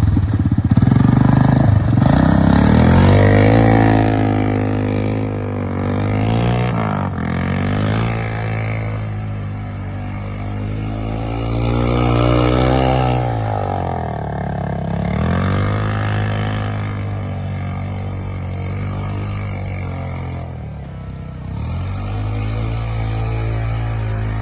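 1987 Honda ATC250ES Big Red three-wheeler's engine running as it is ridden, revving up and easing off again and again, its pitch rising and falling in several long swells.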